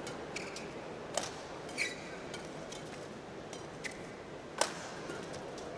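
Badminton rally: several sharp cracks of rackets striking the shuttlecock, the loudest near five seconds in, with brief squeaks of court shoes, over a steady hum of arena crowd noise.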